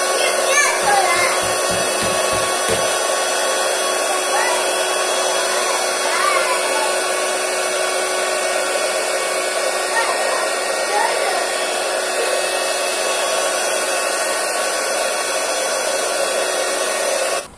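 Electric air pump running steadily, blowing air into an inflatable vinyl dinosaur bop bag, then cutting off just before the end.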